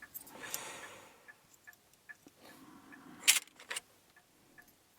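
Small tools being rummaged through in a box while a tension tool is picked out: a soft rustle at first, then two sharp clicks of metal tools a little past the middle. A faint, even ticking runs underneath, about two to three ticks a second.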